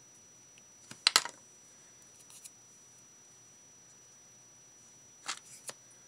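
Short clicks and taps of hard craft items being handled on a cutting mat (a glue tube set down, beads and a metal pin knocking together): a loud cluster about a second in, a faint pair a little later, and a few more near the end.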